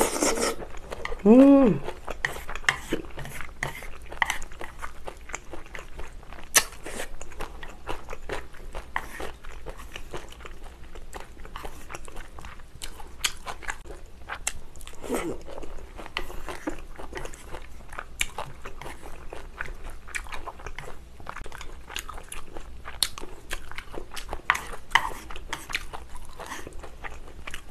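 Close-miked chewing of stir-fried glass noodles, with a steady run of small wet clicks and smacks from the mouth. A short hummed 'mm' of pleasure rises and falls about a second and a half in.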